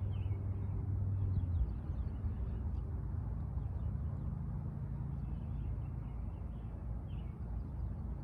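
Small birds chirping in short, high calls, with a flurry of quick chirps in the middle, over a steady low rumble that is the loudest sound.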